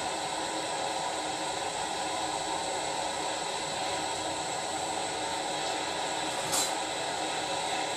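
Handheld gas torch burning with a steady hiss, its flame held into a spoon of bismuth chips to melt them. A single short tick sounds about six and a half seconds in.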